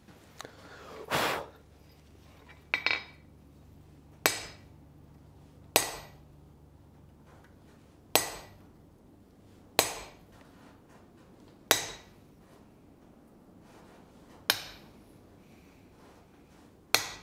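Blacksmith's hammer striking a hand-held chisel set into a red-hot steel leaf on the anvil, sinking the vein pockets into the leaf: seven separate blows about one and a half to two and a half seconds apart, each with a short metallic ring. Before the first blow there are a brief scrape and a quick double clink of metal on the anvil.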